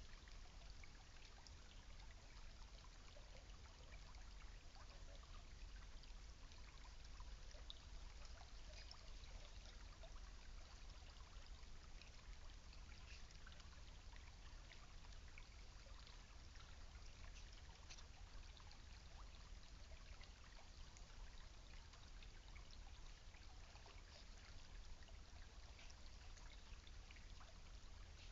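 Faint, steady trickle of creek water, with fine scattered drips and splashes.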